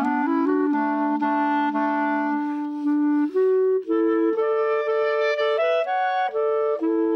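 Two clarinets playing a duet in two parts: a long held note through the first few seconds, then the lines step up into a higher passage of shorter, moving notes.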